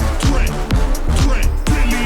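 Background rap music with a steady beat and deep bass notes that slide down in pitch.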